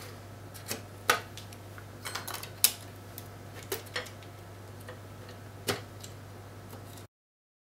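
Scattered light plastic-and-metal clicks and taps as 8GB PC3L-10600R server RAM sticks are unlatched and pulled from a memory cartridge's slots, one sharper click about two and a half seconds in, over a low steady hum. The sound cuts off suddenly near the end.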